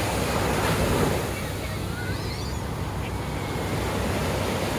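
Ocean surf washing onto the beach, with wind buffeting the microphone.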